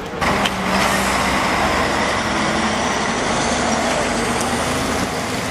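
MAN heavy truck's diesel engine and tyres, loud and steady, as it drives past close by pulling a loaded low-loader trailer.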